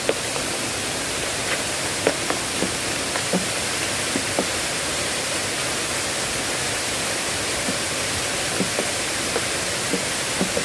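Heavy rain falling in a steady, even hiss, with heavier drops plopping irregularly, about two a second.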